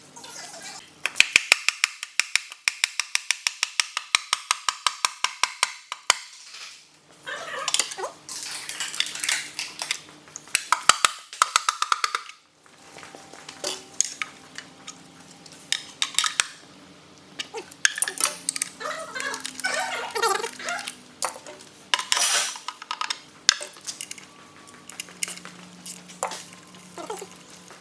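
Workshop clatter from hand tools and metal engine parts: a fast, even run of sharp clicks for about five seconds, then scattered knocks, scrapes and short bursts of hiss.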